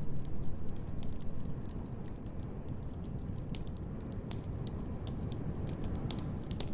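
Wood fire in a fireplace crackling, with irregular sharp pops and snaps over a steady low rumble.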